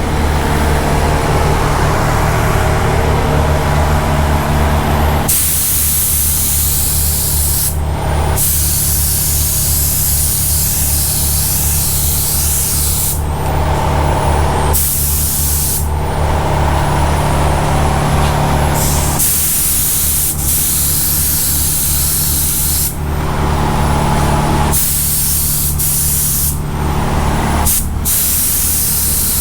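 Paint spray gun spraying the final coat of primer in repeated passes of a few seconds each: an air hiss that starts and stops with the trigger, with a brief whistle as some passes start. A steady low hum runs underneath.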